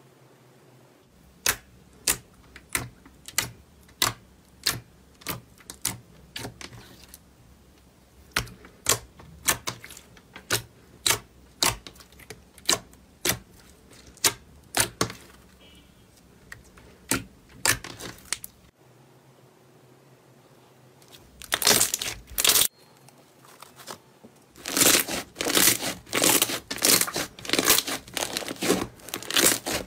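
Slime being handled: a run of sharp pops and clicks, about two a second, as clear slime is poked and pressed. After a short pause comes dense crackling as a fluffy slime is squeezed in both hands near the end.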